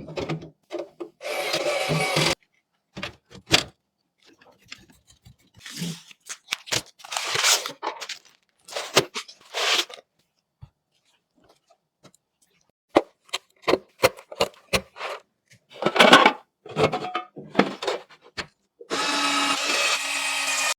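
Computer parts being handled and fitted during a PC build: scattered clicks, knocks and rubbing, with two longer whirring stretches, one about a second in and one near the end.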